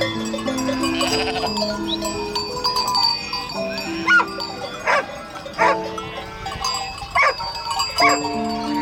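Several short bleating calls from a farm animal, each rising and falling in pitch, over gentle background music with a plucked melody.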